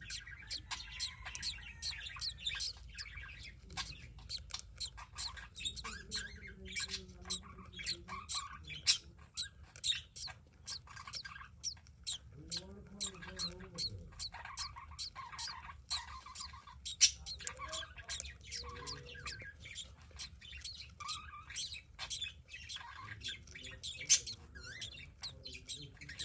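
Budgerigars chirping and chattering: a dense run of rapid, short high chirps and clicks, with a few longer, lower calls now and then.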